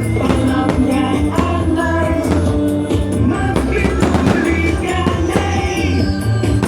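Loud pop song with a steady drum beat, bass and melody, in an instrumental stretch between sung lines.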